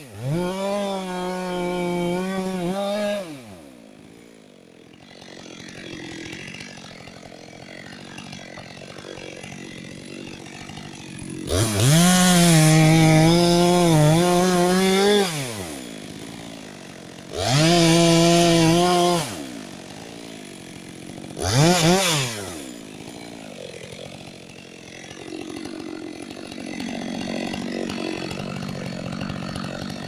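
Petrol chainsaw making the back cut on a felling cut through a large conifer trunk. It runs at full revs for about three seconds, drops to idle, then cuts again in bursts: a long one of about four seconds near the middle, a shorter one of about two seconds, and a brief blip. It idles in between and toward the end.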